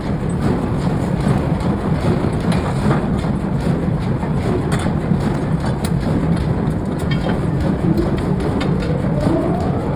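Forging-shop machinery running: a steady, heavy rumble with a few faint sharp clicks scattered through it.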